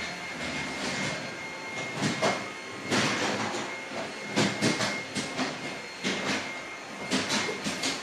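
Bosch Athlet cordless stick vacuum running on its lower setting: a steady high whine under an irregular clatter of its wheels rolling over a tiled floor.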